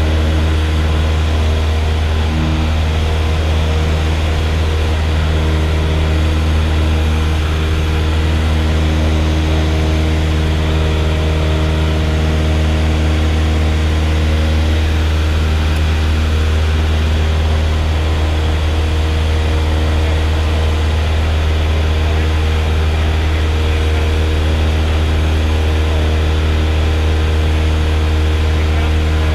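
Light plane's single piston engine and propeller running steadily, heard from inside the cabin as the aircraft climbs out after takeoff. There is a strong, even low drone with no change in pitch or level.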